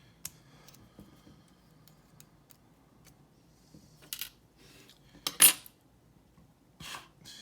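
Small metal parts of a brass padlock clicking and clinking as they are worked apart by hand, with a louder metallic clatter about five seconds in.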